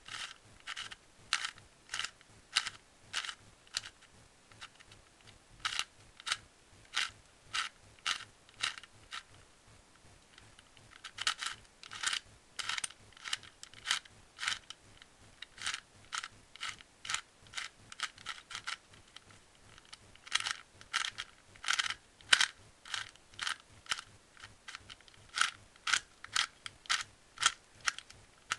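Plastic layers of a hand-held twisty-puzzle cube mod clicking as they are turned, in runs of about two turns a second with a few short pauses between runs.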